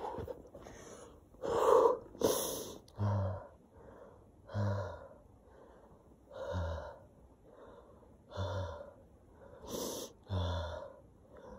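A man panting hard after a run, with heavy gasping breaths. The breaths come about every two seconds, each breath out carrying a low voiced sound.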